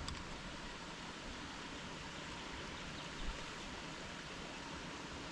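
Steady, even outdoor background hiss with no distinct source, and a faint low thump about three seconds in.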